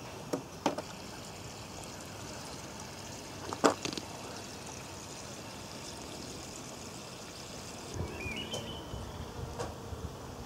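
A few sharp clicks or knocks over a steady faint outdoor hiss, the loudest about three and a half seconds in. A low rumble and a short chirp follow near the end.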